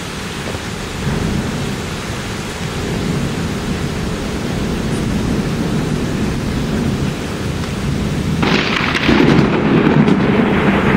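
Thunder rumbling over steady rain during a night thunderstorm. A little past eight seconds a louder, sharper peal of thunder sets in suddenly and swells into a heavy rumble.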